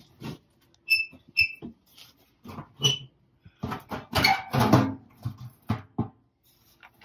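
Handling noise from boxes and an old humpback trunk being shifted and opened: scattered knocks and scrapes, with three short high squeaks in the first three seconds and a louder spell of scraping and knocking a little past the middle.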